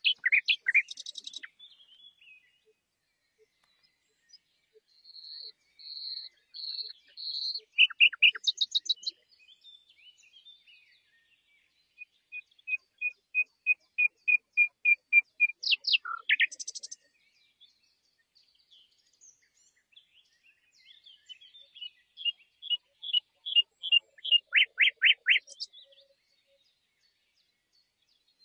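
A songbird singing in separate phrases of whistles, trills and quick repeated notes, with pauses of a few seconds between phrases. One phrase is a run of about a dozen evenly spaced notes that grow louder.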